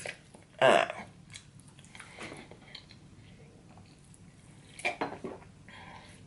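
A person eating close to the microphone: chewing and mouth sounds, with a louder bite or mouth noise about a second in and a few wet smacks around five seconds.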